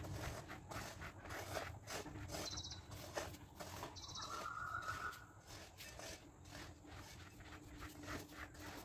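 Faint, irregular scratching and rustling of a comb drawn through a Great Dane's short coat. Two short high trills come about two and four seconds in.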